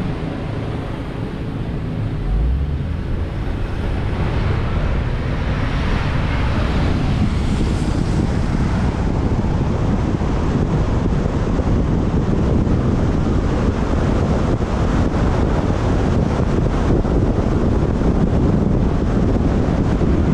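Wind rushing over a roof-mounted GoPro's microphone on a moving Honda Odyssey, with a low road rumble underneath. It gets louder over the first few seconds as the car picks up speed, then holds steady.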